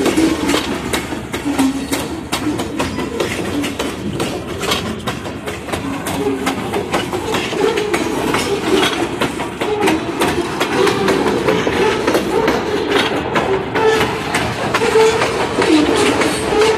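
Freight train of covered hopper cars rolling past close by: a steady rumble of steel wheels on rail, with repeated sharp clacks as the wheels cross rail joints.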